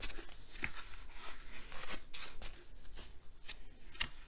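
Glossy pages of a large hardcover art book being turned one after another: a series of short paper rustles and flaps.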